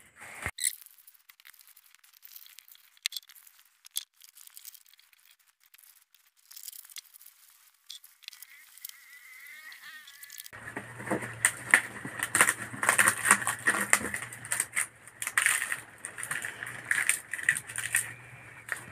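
Fresh banana leaves rustling and crackling as hands fold and tear them. Faint at first, much louder from about halfway through.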